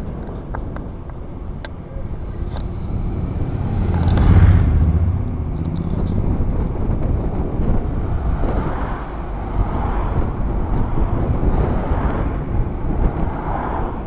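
Riding noise from a bicycle: wind rushing over the handheld camera's microphone and tyres rolling, loudest in a swell about four seconds in, with a few faint clicks near the start.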